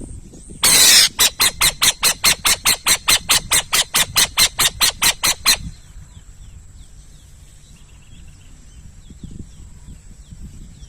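An owl calling: a harsh screech followed by a rapid series of about twenty rasping notes over some four seconds, then stopping abruptly. A thin, steady high-pitched whine runs underneath, with faint small chirps in the second half.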